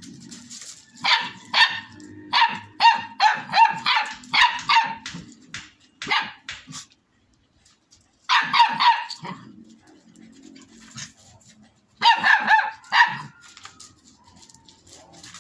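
Puppy barking in runs of short, high-pitched barks: a quick series of about ten, then two shorter bursts after pauses.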